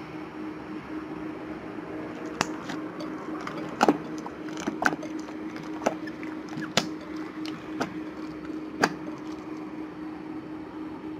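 Orange white-glue-and-detergent slime being kneaded and stretched by hand in a glass bowl, giving irregular sharp wet clicks and pops about once a second, over a steady background hum.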